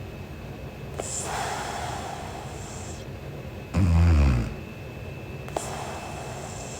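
A sleeping woman snoring: one loud, low snore lasting under a second about four seconds in, with softer airy breaths before and after it.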